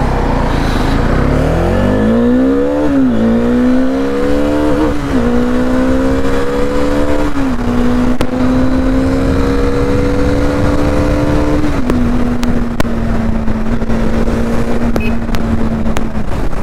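Bajaj Dominar motorcycle's single-cylinder engine accelerating hard through the gears: its pitch climbs and drops at upshifts about three, five and seven seconds in, then holds steady at cruising speed, stepping down slightly about twelve seconds in. Heavy wind rush on the helmet microphone.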